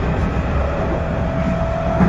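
Cabin running sound of a 311 series electric multiple unit: a steady low rumble of the wheels and bogies, with a faint steady motor whine in the second half.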